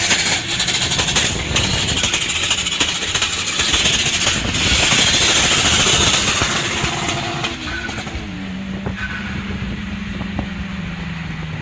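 Tuned turbocharged car engine revving hard, with a loud hiss and crackling pops. About eight seconds in it eases to a steady, held engine note.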